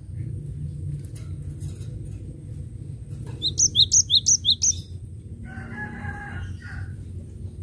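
Cinereous tit (gelatik batu) singing a quick run of about seven sharp, high, downslurred whistled notes near the middle. A chicken's drawn-out call follows in the background, over a steady low rumble.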